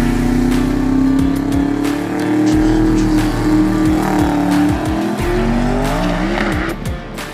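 Drag race car engine running hard at high revs, its pitch wavering and dipping slightly, with background music under it.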